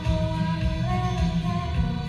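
Music from a live concert performance of a Japanese pop ballad: a sustained melody line that steps up in pitch around the middle, over a dense, steady low accompaniment.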